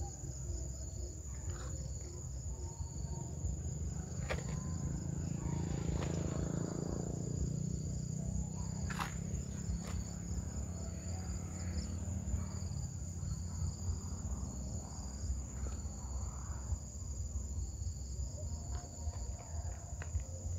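Evening insect chorus: a steady, unbroken high-pitched trill over a low rumble, with a few sharp clicks.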